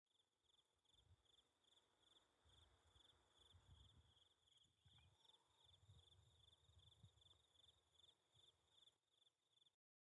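Faint cricket chirping: a steady run of short trilled chirps, about two to three a second, over a low rumble. It cuts off suddenly near the end.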